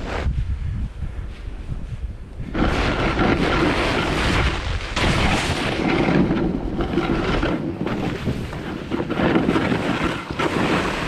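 Wind buffeting the microphone while a snowboard slides and scrapes over snow on a fast run. The scraping rush grows louder about two and a half seconds in and swells and dips with the turns.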